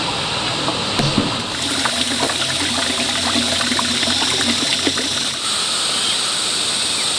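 Water running and splashing steadily, fuller and louder for a few seconds in the middle, with a low hum underneath.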